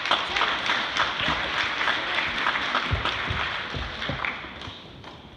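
A congregation applauding, dense clapping that dies away near the end.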